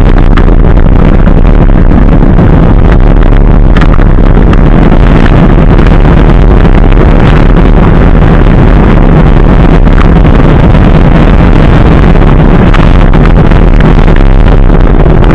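Dualtron Ultra electric scooter riding over a dirt and gravel track, heard through a camera mounted by its front wheel: loud, steady wind noise and rumble on the microphone, with a few scattered clicks and rattles.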